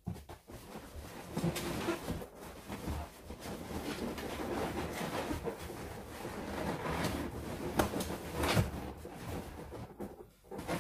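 Latex balloons rubbing and knocking against each other as a cluster is worked onto a balloon garland, with a few sharper taps among the rustling.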